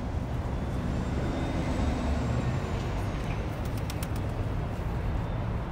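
Steady outdoor city street noise, mostly a low rumble of passing traffic, with a few sharp clicks about four seconds in.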